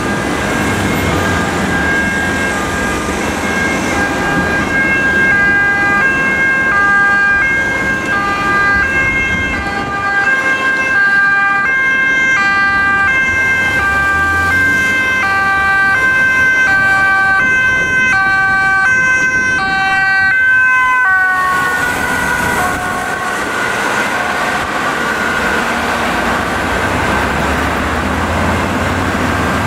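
Ambulance's two-tone siren alternating between a high and a low note as the ambulance approaches on an emergency run. About two-thirds of the way in the pitch drops as it passes, and the siren fades under traffic noise as it drives away.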